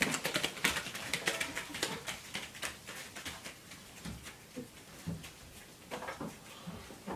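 Quick run of footsteps and knocks from children running, thickest in the first few seconds, then scattered thumps.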